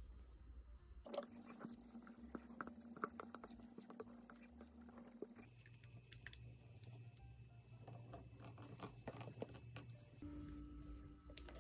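Faint, scattered wet clicks and smacks of a silicone spatula working thick egg-and-sugar batter in a mixing bowl, over a low steady hum.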